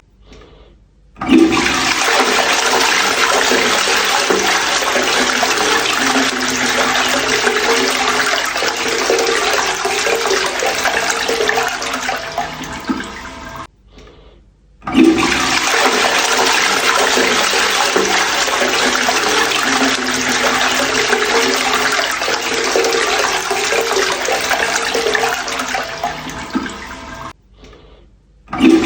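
Toilet flushing twice in a row. Each flush starts suddenly with a loud rush of water that runs for about twelve seconds and then tails off, with a short pause between flushes. A third flush begins at the very end.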